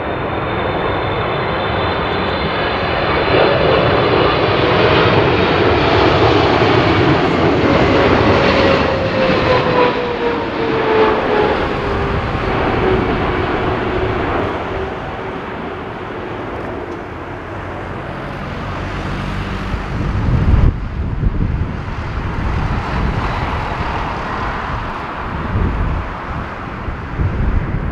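Boeing 777-300ER's twin GE90 turbofans on landing approach, a loud jet rumble with a fan whine that slides down in pitch as the airliner passes. In the second half, irregular low buffeting of gusty wind on the microphone.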